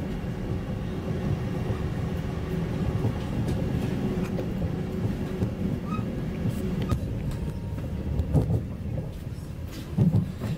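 Passenger train running on the track, heard from inside the carriage: a steady low rumble with a faint hum. A few sharp knocks come in the second half, the loudest about ten seconds in.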